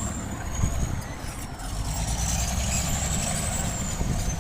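Bulldozer's diesel engine running steadily with a low rumble, and a thin high whine above it that slowly falls, rises, then falls again in pitch.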